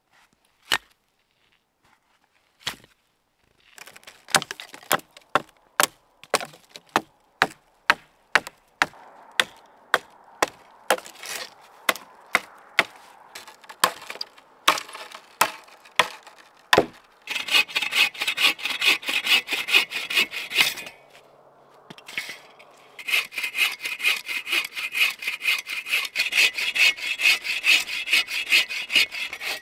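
Dry dead wood being broken, a run of sharp snaps one after another at about one or two a second. About halfway through, a bow saw starts cutting through a dry dead log in quick, rasping strokes, stops for a couple of seconds, then saws on.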